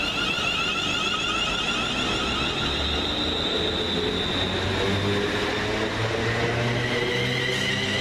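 West Midlands Railway Class 350 Desiro electric multiple unit moving at the platform: steady wheel-and-rail noise with high ringing tones, joined about two and a half seconds in by a low electric hum from the train.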